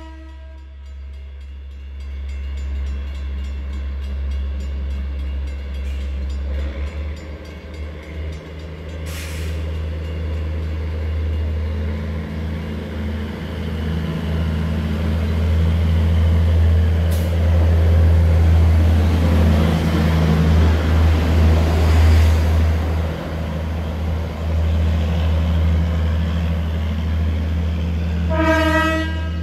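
Sperry Rail Service rail-testing car SRS128 on the move: a horn blast cuts off just as the clip begins. The car's engine drone and rolling noise then build steadily, peak and fall away, and a short horn blast sounds near the end.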